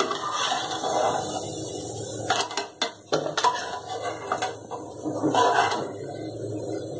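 Slotted steel spoon scraping and clinking against a metal kadai, several separate clinks, as fried besan gatte are scooped out of the oil.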